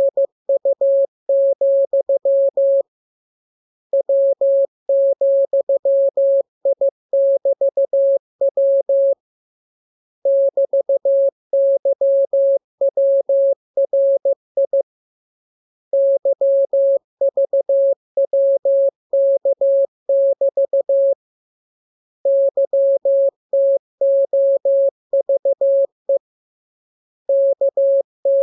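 Morse code (CW) sent as a single steady mid-pitched tone, keyed in dots and dashes in runs of characters a few seconds long, with pauses of about a second between runs.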